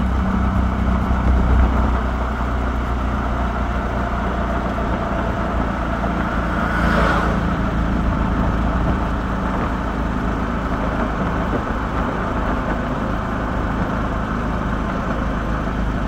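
Steady engine and road rumble of a moving vehicle, heard from inside the vehicle, with one brief rushing swell about seven seconds in.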